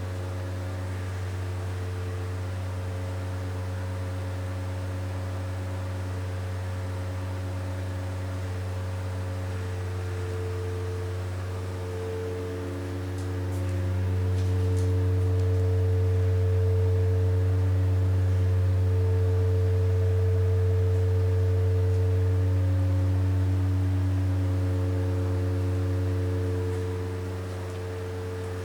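Stuck elevator giving off a steady low hum, with higher ringing tones that swell and fade over it. It gets louder about halfway through and eases off near the end. The car won't move, and the uploader suspects the traction motor has broken free and is turning.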